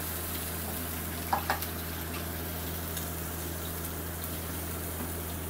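Water poured from a measuring cup into the side water channel of a stovetop fish-grill pan over a gas burner, against a steady hiss from the burner and the grilling fish. Two short clicks about a second and a half in.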